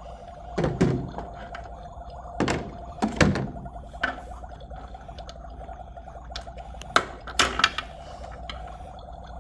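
Objects being handled and set down: a series of separate thunks and knocks, the loudest about three seconds in, over a steady faint hum.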